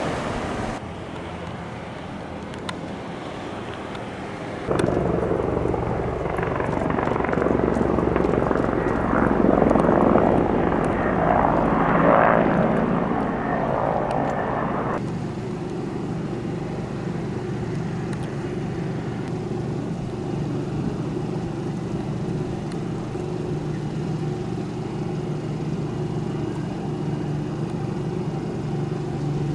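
Firefighting helicopter flying over, its rotor and turbine sound growing from about five seconds in, loudest around ten to twelve seconds, then cut off sharply. A steadier, quieter drone follows.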